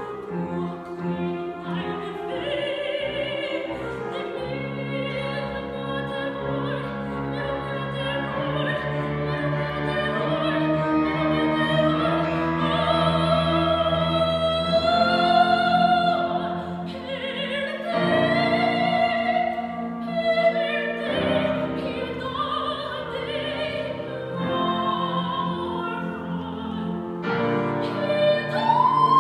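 A woman singing in classical operatic style with grand piano accompaniment: long held notes with vibrato, rising to a high held note near the end.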